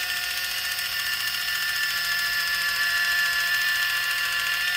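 Kitchen Mama battery-powered electric can opener running steadily, a high motor whine, as it drives itself around the rim of a can, cutting the lid open.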